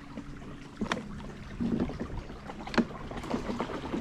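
Small boat running a fast creek current with water rushing around the hull, a faint steady hum from a Minn Kota electric trolling motor, and a few sharp knocks.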